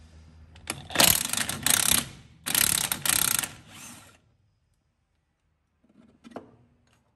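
Cordless impact wrench hammering in two bursts of about a second each, undoing the E16 Torx bolt of a rear shock absorber. A few faint clicks follow near the end.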